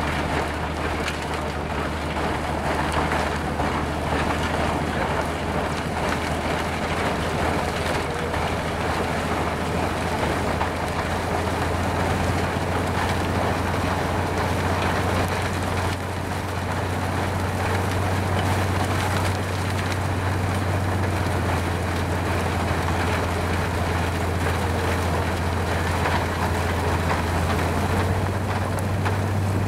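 Rotary snow plow train cutting through deep drifts: a steady low engine drone under the continuous rushing hiss of snow being chewed up and blown aside. The drone strengthens about a third of the way through and steps up in pitch near the end as the plow comes closer.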